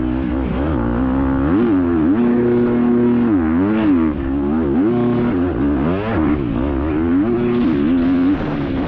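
Racing dirt bike engine heard from on board, its pitch climbing and dropping again and again as the throttle is opened and closed, with a few short stretches held steady.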